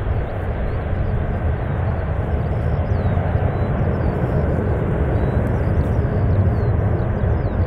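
Antonov An-225 Mriya's six D-18T turbofan engines running at high power, a loud, steady low rumble. Faint bird chirps sit above it.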